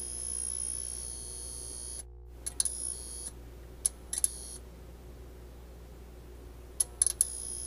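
Digital glitch sound effects: a high-pitched electronic whine with hissing static, cut short about two seconds in, then scattered sharp clicks and short static bursts, with the whine coming back near the end. A low, steady hum runs underneath.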